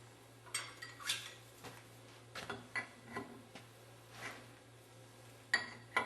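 Light, irregular metal clinks and scrapes from a hydraulic elbow fitting and hand tools being handled as the fitting is threaded into a snow plow pump block, about ten separate clinks spread out over the few seconds.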